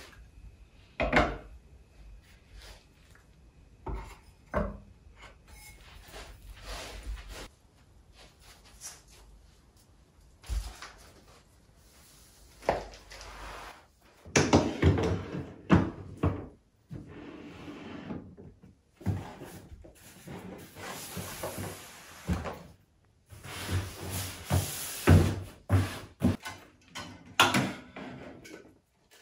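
Household handling sounds in a small room: knocks as a glass candle jar and other objects are set down on a wooden box shelf, the handling of a potted plant, and wardrobe doors and clothes hangers near the end. They come in separate knocks and rustling bursts of a second or two, with short gaps.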